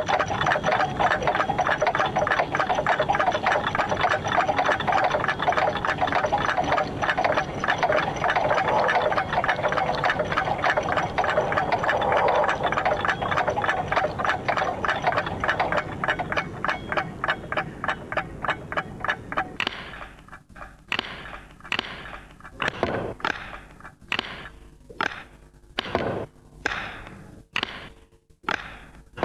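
Many clocks ticking at once, a dense fast clatter of overlapping ticks. About 20 seconds in it thins to a single clock's slower tick, about one every two-thirds of a second.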